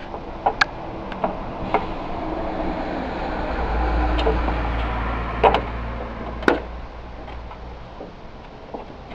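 Roof tiles knocking sharply as they are set in place on the battens, a few clacks near the start and two louder ones in the second half. Underneath, a low rumble swells in the middle and fades, with the hum of a passing vehicle.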